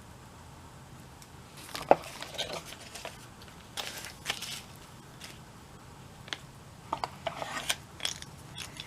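Light clicks and metallic clinks of an old hand drill or driver being handled, its metal parts knocking and catching as it is turned and worked. The clicks come unevenly, about a dozen in all.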